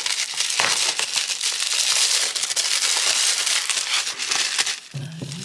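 Plastic bubble wrap crinkling and rustling as hands unfold it, a dense steady crackle that eases near the end.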